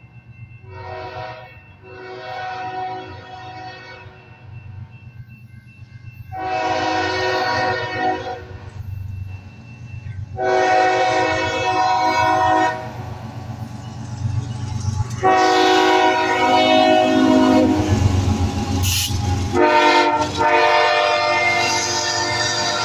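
Kansas City Southern diesel freight locomotive's multi-chime air horn sounding for a road crossing: a short blast about a second in, then a run of long blasts, growing louder as the locomotive nears and passes. A steady low rumble of the locomotive and the rolling grain hopper cars runs underneath.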